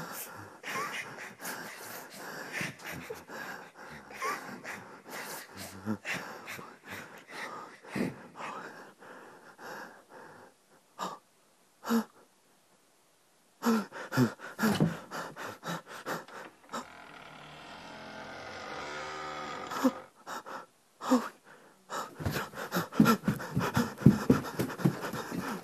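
A person's fast, heavy breathing in quick strokes, stopping for a couple of seconds around the middle, with a steady rushing sound for a few seconds in the second half.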